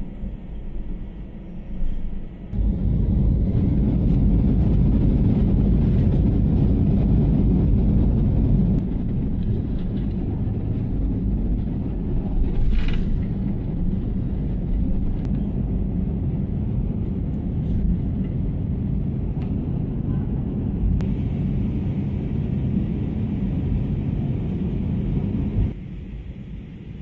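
Jet engines of an Airbus A320 airliner at takeoff power, heard inside the cabin: a loud, steady rumble with runway noise. It starts suddenly a few seconds in, eases slightly about nine seconds in, and drops away shortly before the end.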